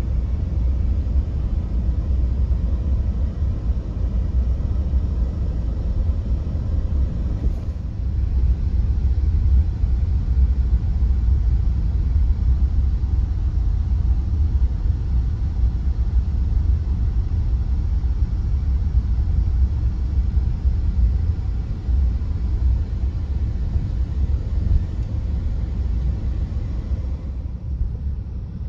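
A steady low rumble that rises and falls slightly in loudness, with no clear single event; it thins out a little near the end.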